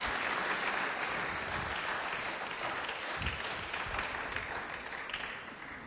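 Congregation applauding, the clapping slowly dying down toward the end.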